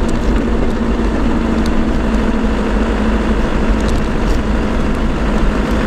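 Land Rover LT230 transfer box whining steadily over engine and drivetrain noise, heard with sound proofing fitted.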